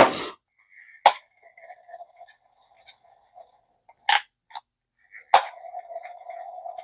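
Early-1960s Zebco spincast reel being handled and cranked: a few sharp metal clicks, and between them a faint steady whir of the freshly greased gears with light ticking as the handle turns.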